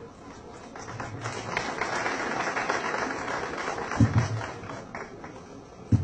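Audience applauding: the clapping builds about a second in and fades toward the end. Two dull thumps in the second half are the loudest moments.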